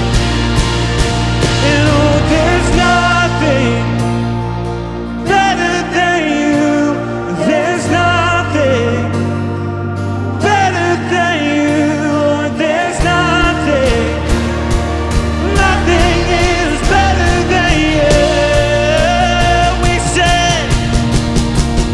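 Contemporary Christian worship song: singing over a band with bass and drums.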